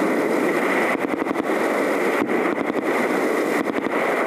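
Enemy machine-gun fire in three short bursts of rapid cracks, about one, two and three and a half seconds in, over a steady noisy hiss.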